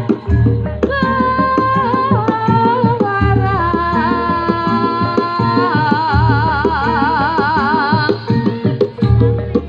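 Live Javanese jaranan accompaniment: a melody with wide vibrato over busy hand-drum strokes, with a deep low note sounding about every three seconds.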